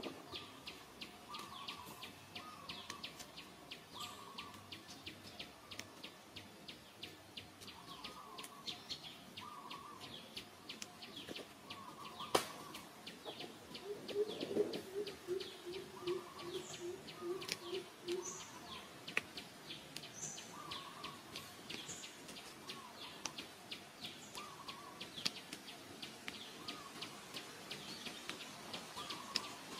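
Birds chirping and calling, with a short call repeating every second or two over a dense, fast high ticking. About halfway through comes a run of about a dozen quick low notes, and a single sharp click just before it.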